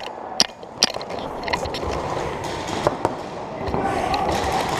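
Paintball markers firing: two sharp pops within the first second, then a few fainter shots.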